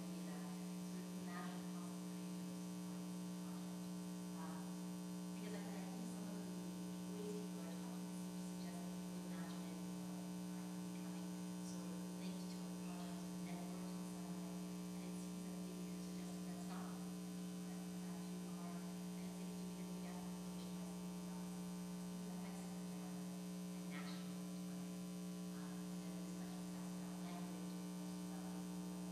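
Steady electrical mains hum in the sound system, with a strong low tone and a fainter buzz of higher tones above it. Only faint, indistinct room sounds lie underneath.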